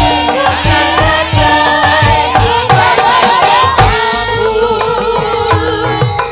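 Javanese gamelan music played loud through a PA, with women and men singing together over regular drum beats; the drumming drops away about four seconds in as a steadier low tone takes over.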